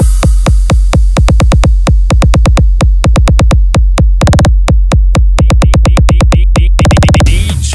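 Electronic dance remix with a fast, pounding drum-machine beat over heavy bass. The hits speed into a rapid roll near the end, then the track drops into a quieter section.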